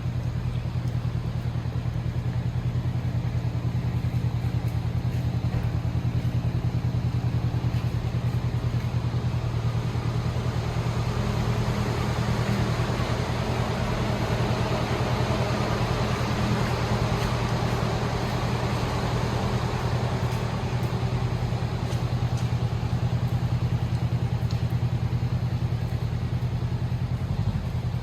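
A steady, loud mechanical drone, like an engine running, with a strong low hum and a fast even pulse. It fills out about halfway through and eases again before it stops.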